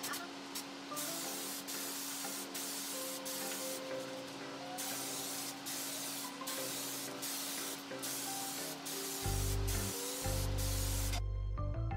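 Gravity-feed paint spray gun hissing in a run of short bursts, each under a second with brief gaps between, as the trigger is pulled for each pass while spraying primer onto kitchen cabinets. The hiss stops about a second before the end. Background music plays throughout, with a heavy bass coming in near the end.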